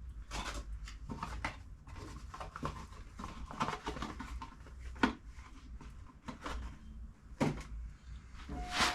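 Scattered light clicks and knocks, with two sharper knocks about five and seven and a half seconds in and a louder one near the end, over a faint low hum.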